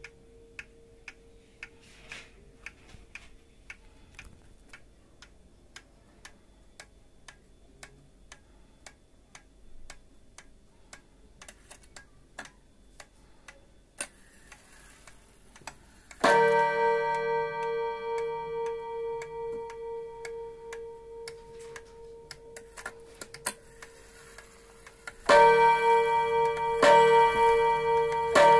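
Seiko 30-day wall clock movement ticking steadily. About halfway through its gong is struck once and rings out slowly fading. Near the end the strike begins a run of blows about a second and a half apart, each ringing over the last.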